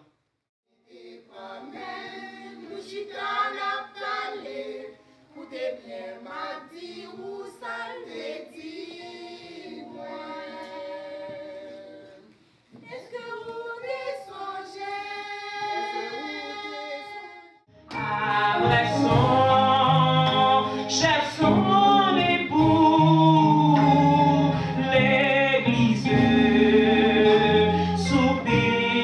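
Women's choir singing a gospel hymn. About eighteen seconds in the sound turns suddenly much louder and fuller, with deep steady notes under the voices.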